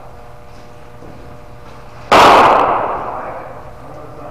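A cricket ball's impact: one loud, sharp crack about two seconds in, with a long echoing tail off the walls of the indoor net hall.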